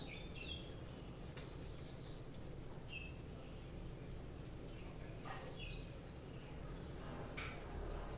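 Paintbrush stroking and dabbing paint onto paper: faint, soft scratching. A few short high chirps sound now and then.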